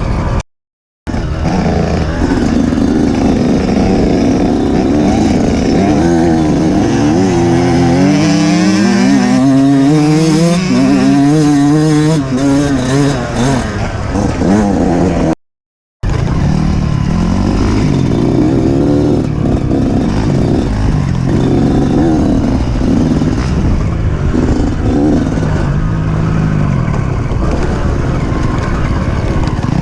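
Off-road racing motorcycle engine revving up and down over and over, its pitch rising and falling every second or so under the rider's throttle. The sound cuts out completely twice, briefly: about a second in and about halfway through.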